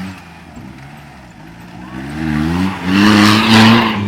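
Off-road 4x4's engine revving hard in repeated rising and falling surges, building to its loudest about three seconds in, together with a rushing noise.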